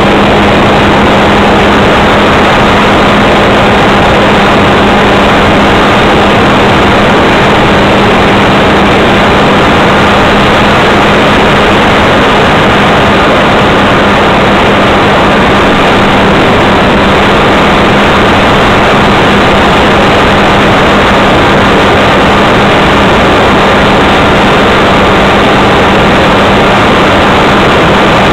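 Model airplane's motor and propeller running steadily in flight, heard loud through the plane's onboard camera microphone, one unchanging low tone over a dense rush of noise.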